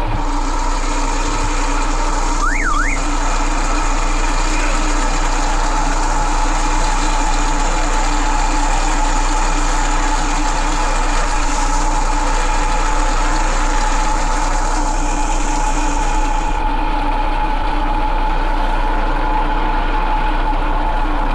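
Boat motor running steadily with a held whine. The highest tone drops out about three-quarters of the way through.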